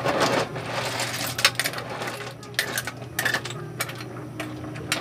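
Metal ladle stirring sea snails in their shells in an aluminium pot, with irregular sharp clinks and scrapes as the ladle and shells knock against the pot.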